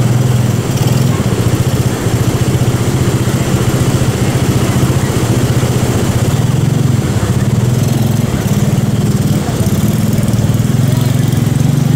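A small engine idling steadily at close range, with a low, even hum whose pitch wavers slightly partway through.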